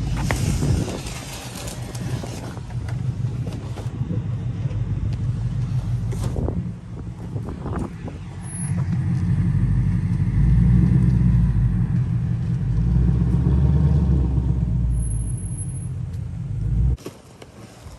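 Motor vehicle running with a low rumble, growing louder through the middle and cutting off abruptly near the end.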